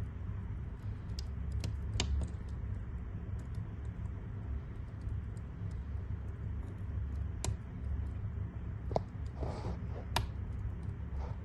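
Wood fire crackling in a fireplace: a steady low rumble of burning logs with scattered sharp snaps and pops, louder ones about two seconds in and several near the end, and a brief hiss about nine and a half seconds in.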